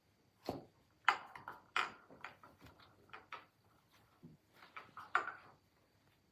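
Small packaging being handled and opened by hand: a run of irregular clicks, taps and rustles, loudest about a second in and again just after five seconds.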